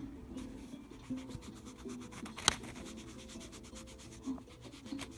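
A rubber eraser rubbing back and forth on notebook paper, a soft continuous scrubbing, with one sharp tap about two and a half seconds in.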